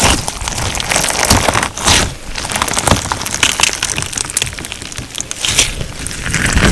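Crunchy slime filled with sugar beads being squeezed, folded and poked by hand, giving a dense run of crackling pops and crunches.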